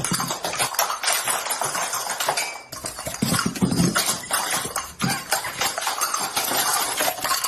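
A dense crackle of many rapid, overlapping pops and clicks, with a short break a little before three seconds in.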